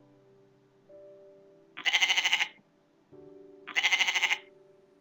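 A sheep bleating twice, each bleat a wavering call under a second long, over soft background music.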